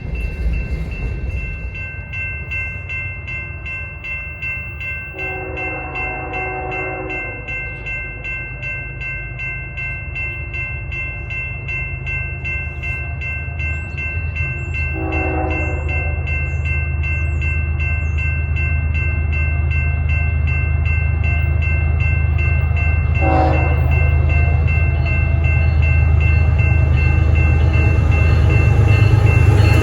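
An approaching freight train: the diesel locomotives' engines rumble steadily and grow louder. The horn sounds three times: a blast of about two seconds around 5 seconds in, a shorter one around 15 seconds, and a brief toot near 23 seconds.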